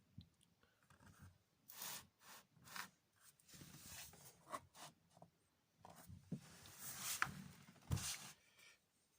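Irregular scraping and rubbing strokes from hand work on a hard surface, with one sharp knock about eight seconds in.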